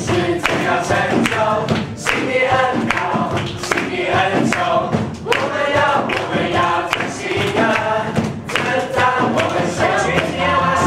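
A group of worship singers on microphones singing a Mandarin praise song together with music accompaniment, the congregation clapping along.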